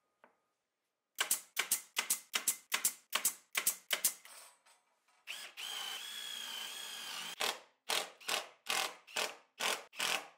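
Cordless drill-driver working into plywood: a quick series of short bursts, about three a second, then a steady run of about two seconds, then more short bursts near the end while screws are driven in.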